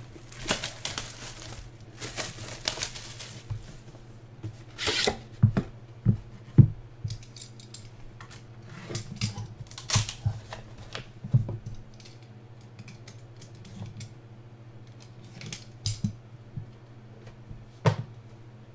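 Trading-card packaging being handled: several bursts of rustling and tearing as wrapping is pulled open, with light clicks and taps as cards and sleeves are handled. A steady low hum runs underneath.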